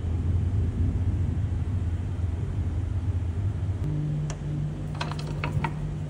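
Low steady workshop hum that changes pitch about two-thirds of the way through. Near the end come a few light clicks as the steering damper shaft is handled and set in a bench vise.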